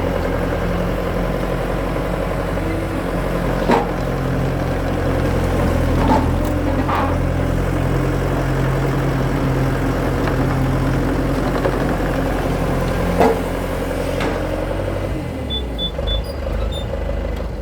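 Skid steer engine running steadily, with a few sharp knocks of wood in between; the engine drops off near the end.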